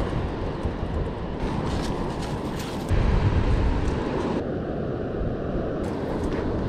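Wind buffeting the microphone, a steady low rumble with a stronger gust about three seconds in.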